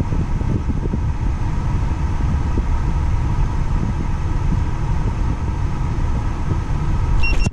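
Steady rush of a car's A/C blower pushing air out of the dash vent, over the idling engine, with the air conditioning working and the vent air reading about 36 °F. A short high beep comes near the end.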